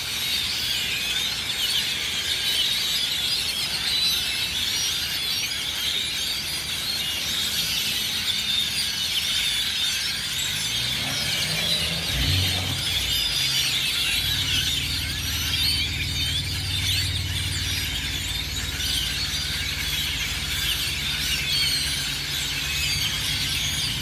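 A large flock of small birds roosting in trees, calling all at once in a dense, continuous chorus of many overlapping high calls. A low motor hum joins about halfway through.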